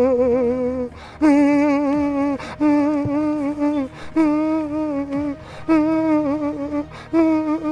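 A wordless hummed melody of sustained notes, each about a second long with short breaks between, wavering in pitch.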